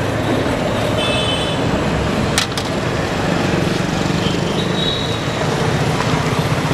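Steady street traffic with motorbikes and cars passing, a sharp click about two and a half seconds in, and two short high-pitched tones, one about a second in and one near five seconds.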